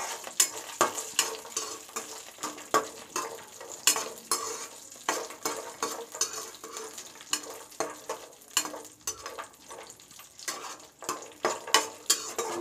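Cashews and almonds frying in ghee in a pan while a steel spoon stirs them. The spoon and nuts click and knock against the pan many times, irregularly, over a soft sizzle.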